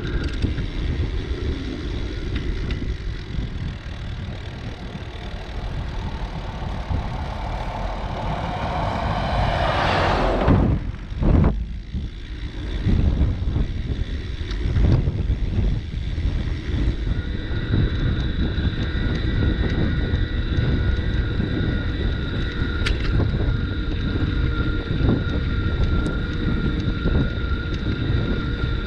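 Riding a bicycle: wind buffeting the microphone and the rumble of rolling over the path, with a faint steady whine throughout. A rush of noise builds up to about ten seconds in and then cuts off abruptly, followed by a couple of thumps.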